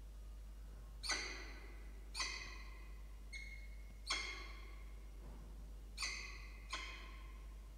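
Peregrine falcon giving short, sharp calls in the nest box, six in the space of about six seconds, each starting abruptly and dying away within half a second; one near the middle is a thinner, briefer note.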